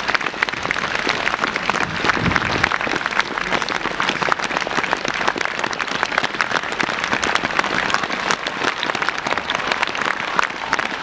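A large crowd clapping steadily and continuously: farewell applause as a funeral cortege carries wreaths and a coffin past.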